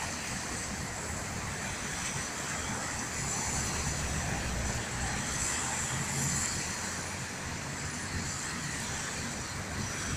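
Steady city street traffic: cars and a truck running past, a continuous low rumble.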